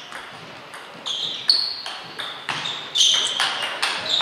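Table tennis rally: the plastic ball clicking sharply off the bats and the table in quick alternation, starting about a second in, about two to three hits a second, with a short ping after each.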